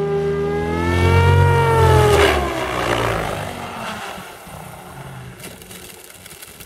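Goblin 700 electric RC helicopter's motor and rotor whining, the pitch rising and falling as it manoeuvres, with a rushing blade sweep about two seconds in. The sound then fades away as the helicopter comes down and lands.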